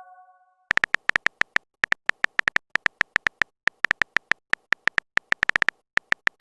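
Smartphone keyboard typing sound effect: a quick run of short, sharp clicks at an uneven pace, starting about a second in, as a chat message is typed out.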